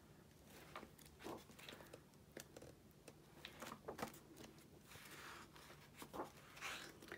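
Paper pages of a large book being turned by hand: a few faint swishes and soft rustles, with small taps of paper between them.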